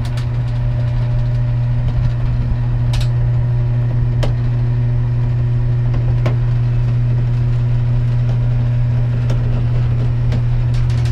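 A third-horsepower electric motor on a 30-to-1 gear reduction box running steadily, driving a roller chain over its sprocket to pull a roll-off observatory roof closed: a steady hum, with a few light clicks.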